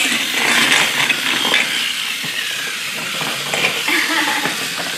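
Small battery-powered motor of a motorized Chuggington toy train whirring steadily as the train drives along plastic track.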